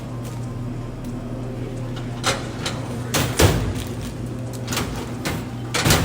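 A few knocks and thumps, the loudest about three and a half seconds in and another just before the end, over a steady low hum.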